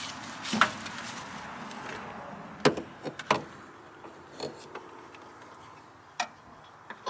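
A handful of separate clicks and knocks, about five over several seconds, as a bolt and metal mounting parts are handled and fitted by hand. A faint rustling hiss fades away over the first couple of seconds.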